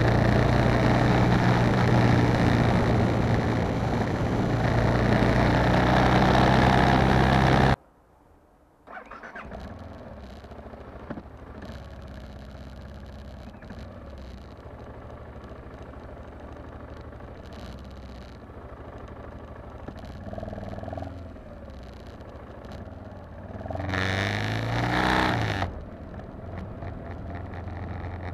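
BMW G650GS single-cylinder motorcycle engine running steadily and loudly at road speed. About a quarter of the way in the sound drops suddenly to the same engine running quietly at low speed. Near the end there is one brief rev that rises in pitch.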